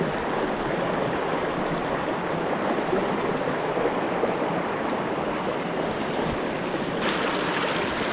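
Swollen, fast-running creek rushing steadily in high water. About a second before the end the rush turns brighter and hissier.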